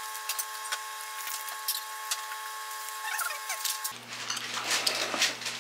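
Scattered light clicks and rustles of food and packaging being handled, turning into a clear plastic bag crinkling as it is opened, over a steady faint hum.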